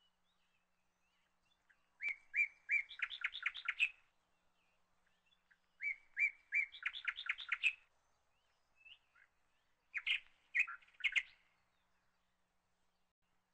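A bird singing three short phrases a few seconds apart, each a few separate notes followed by a quick trill.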